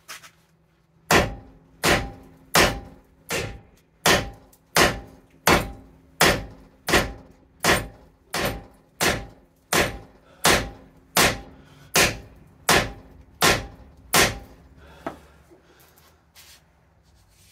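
Hand hammer beating on the corroded, seized rear wheel bearing hub assembly of a 2012 Subaru Outback to break it free: about twenty steady blows, roughly one and a half a second, each with a short metallic ring. The blows stop about three seconds before the end.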